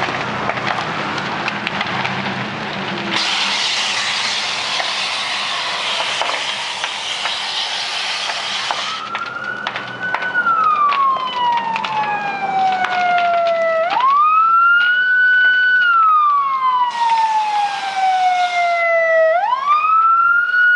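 Building fire crackling, then a steady hiss lasting several seconds. From about nine seconds in, an emergency vehicle's siren wails and grows louder: it slides quickly up, holds, then glides slowly down, in a cycle of about five seconds, and is the loudest sound.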